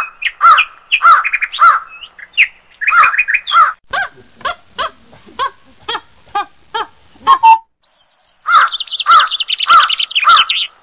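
Birds calling loudly: repeated harsh calls about two a second, then a run of short clipped notes, a brief pause, and the calls again with a high, fast trill over them near the end.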